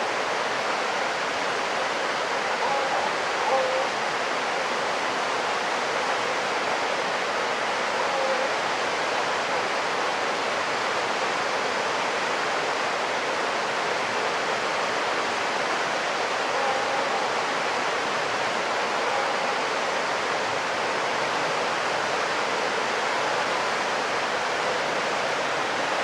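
River water rushing steadily, a continuous even roar of moving water. A few faint short calls rise above it at intervals.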